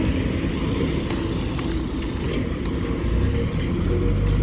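Engines of vehicles and machinery running at a road construction site, with a deeper engine hum growing louder near the end.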